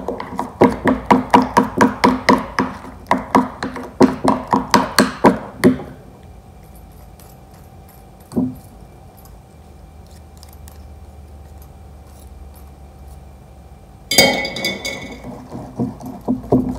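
Wire whisk beating tahini and yogurt in a ceramic bowl: rapid clinking strokes, about four a second. The strokes stop partway for a stretch of quieter fork stirring with one thump, then a single ringing clink, and the brisk whisking starts again near the end.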